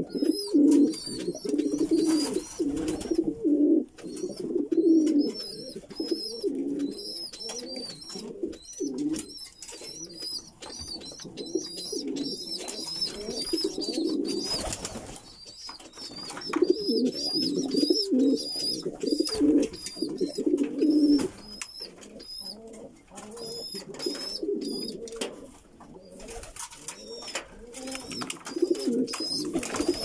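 Jacobin pigeons cooing in repeated low, warbling bouts of a few seconds each. Other birds chirp rapidly and high-pitched throughout.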